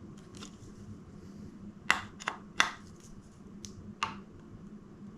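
A few sharp metal clicks from hand tools working on bicycle handlebar clamp bolts as they are tightened: four quick clicks at uneven spacing, with fainter ticks between.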